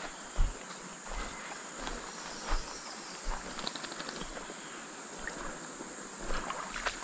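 Steady high-pitched drone of insects, with a few dull footstep thumps on the creek bank, the loudest about half a second in.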